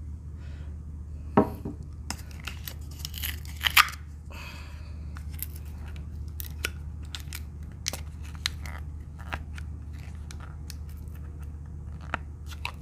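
Tableware handling at a table: a drinking glass lifted and set down, with scattered clicks, taps and rustles, a loud knock about a second and a half in and two sharp clicks near four seconds, over a steady low hum.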